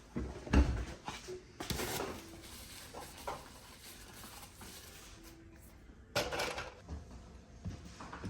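Irregular knocks and clatter of things being handled, with a loud thump about half a second in and further bursts of rattling near two and six seconds in.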